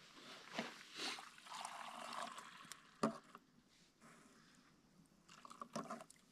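Hot tea being poured into a cup for about two and a half seconds, faint. Then a single knock about three seconds in and a few small clicks near the end.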